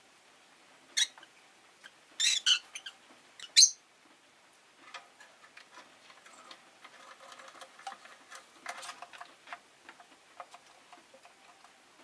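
Rosy-faced lovebirds giving three short, shrill chirps in the first four seconds, the last the loudest, then a run of softer clicks and chatter.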